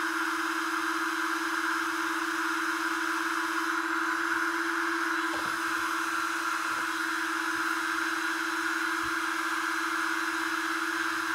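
ToolkitRC M8S charger's built-in cooling fans running at high speed, a steady whir with a constant hum beneath it, as the charger works under a full charge current of about 18 A.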